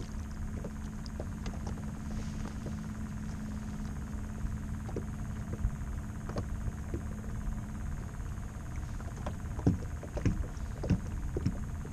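A steady low hum and rumble, with scattered light clicks and knocks from a fishing rod and reel being handled in a kayak, more of them about nine to eleven seconds in.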